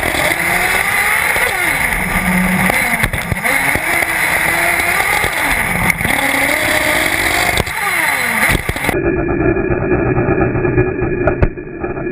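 Nitro engine of a 1/8-scale Intech BR-5 off-road RC buggy, heard from a camera mounted on the car, revving up and down through the corners with a rising and falling whine over tyre and wind noise. About nine seconds in, the engine sound cuts off abruptly and a duller, muffled sound takes over.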